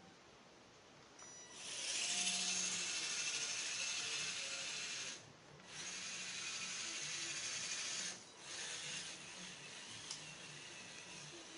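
Radio-controlled 4x4 scale crawler's motor and gearbox whirring as it drives, starting about a second and a half in. It stops briefly twice as the throttle is let off, and runs a little quieter near the end.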